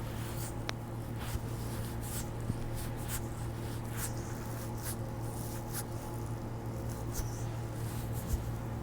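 Hands rubbing and pressing over a bare foot during a massage. Short skin-friction swishes come about once a second, over a steady low hum.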